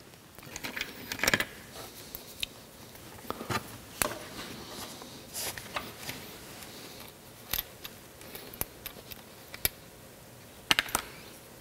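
Hand-work on a cast iron casting: scattered clicks and knocks from handling the part, with short scratchy strokes of a felt-tip marker drawn along a crack on the rough iron surface.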